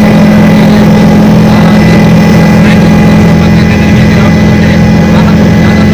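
Helicopter engine and rotor noise heard from inside the cabin: a loud, steady drone with a strong low hum.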